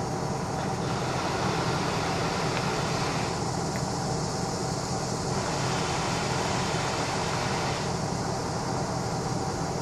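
Steady mechanical background noise, an even hiss over a low hum, with no change in level and no distinct strikes or clicks.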